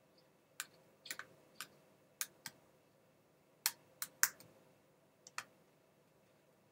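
About a dozen light, sharp clicks at irregular spacing, from a small Phillips screwdriver and small screws working against the plastic and metal of a laptop screen assembly as its screws are put back in.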